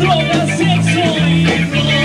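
Live rock band playing: electric guitar over a steady bass line, with a man singing into the microphone.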